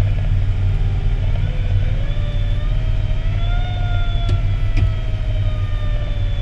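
Fire engine's engine and road rumble heard from inside the cab at highway speed, steady and loud, with a faint whine that rises over the first few seconds and then slowly falls.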